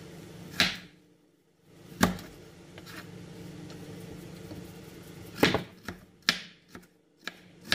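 Kitchen knife knocking on a cutting board while carrot rounds are cut into quarters: several sharp, irregularly spaced knocks over a steady low hum.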